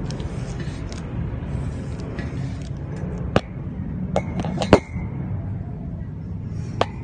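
Sharp metallic clinks from a spoked motorcycle wheel with an aluminium hub as it is handled: one clink a little before halfway, then a quick run of clinks, the loudest ringing briefly, and one more near the end. A steady low rumble runs underneath.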